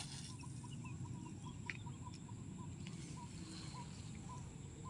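Short animal chirps repeating about two to three times a second, over a low rumble of outdoor background noise, with a brief click near the start.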